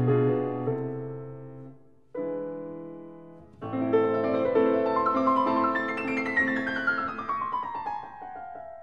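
Background piano music: held chords that fade, a fresh chord about two seconds in and another shortly after, then a descending run of notes near the end.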